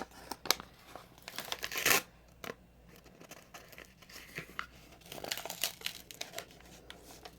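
A trading-card grab bag being torn open by hand: crackling and crinkling of its wrapping, loudest in a tearing burst about two seconds in, then lighter rustling and crinkles.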